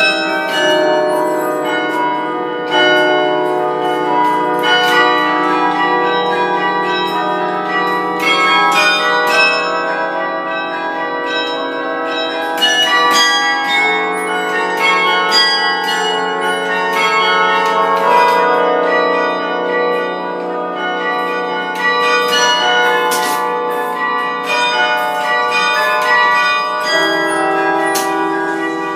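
Harkness Tower carillon's bronze bells playing a piece from the baton keyboard and pedals: many struck notes ring on and overlap, with low bass bells sustaining under a quicker line of higher bells.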